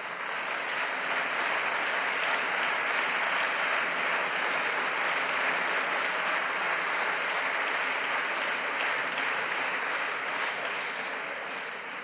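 Applause from a large group of seated deputies: many hands clapping steadily, fading out near the end.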